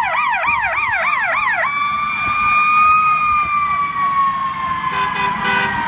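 Emergency vehicle sirens on passing fire apparatus. A fast yelp siren, about four falling sweeps a second, sounds over a steady siren tone and cuts off about one and a half seconds in. The steady tone carries on, rising a little and then slowly falling in pitch, with a few short horn blasts near the end.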